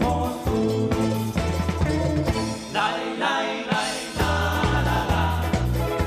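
Band music in a stretch without sung words, from a group that mixes electric guitars, bass and drum kit with Andean instruments such as the charango. About halfway through, the bass drops out for a little over a second, then comes back.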